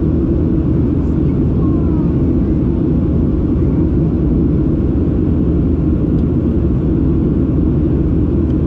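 Cabin noise inside a Boeing 737-700 in flight: the CFM56-7B engines and the airflow past the fuselage make a steady, low, unchanging rumble.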